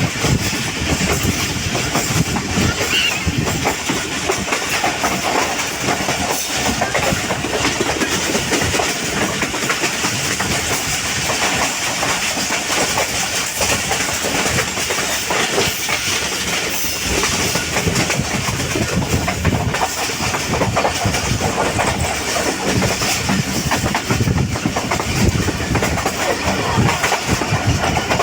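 Passenger train running along the track, with steady wheel and rail noise and a continuous clickety-clack of the wheels over the rails.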